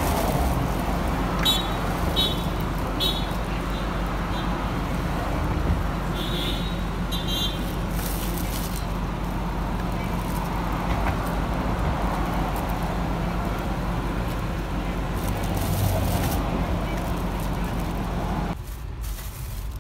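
Steady roadside traffic noise with a low engine hum, and brief crinkling of a thin plastic bag as ackee pods are put into it.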